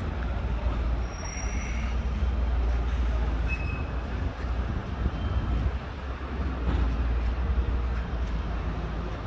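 Steady low outdoor rumble with a faint hiss, rising and falling a little, with no distinct events.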